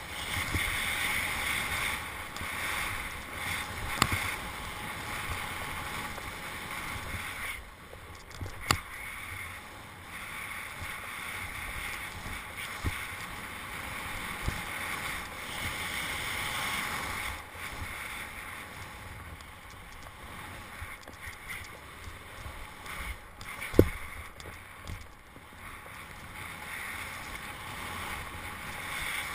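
Snowboard sliding through powder snow: a steady hiss and rush of the board cutting the snow, swelling and easing with the turns. A few sharp knocks cut through it, the loudest about three-quarters of the way through.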